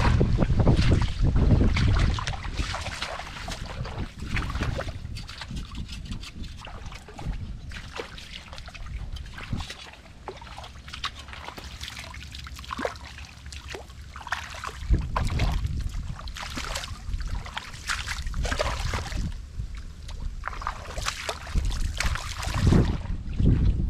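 Wet mud and water sloshing and squelching in irregular bursts, with gusts of wind on the microphone near the start, about fifteen seconds in and near the end.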